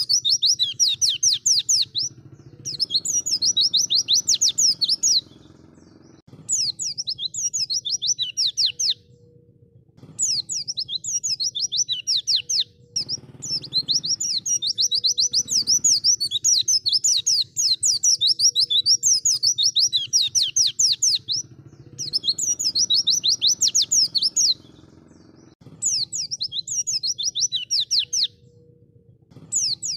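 White-eye (pleci) singing: fast, high trills of rapidly repeated notes in phrases of two to eight seconds, each broken off by a short pause.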